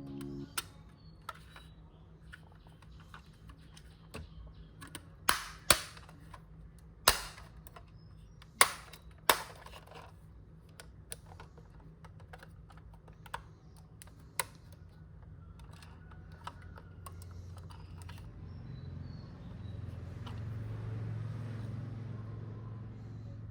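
Sharp clicks and knocks of a diecast model car and its plastic packaging being handled, a run of five loud taps in the middle, then scattered lighter clicks. A low hum swells in near the end.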